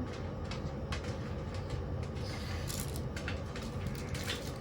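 Washing machine running, with a steady low rumble and scattered light knocks and clicks.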